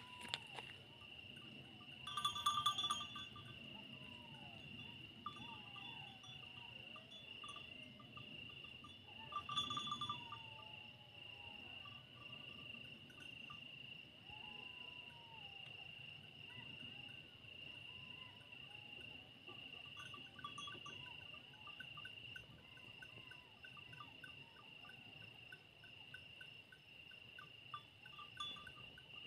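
Distant howling and yipping, many overlapping rising and falling wails, from wild animals that the recordist names as jackals and hyenas, over a steady chirping of crickets. Two louder bursts of calling come about two and ten seconds in.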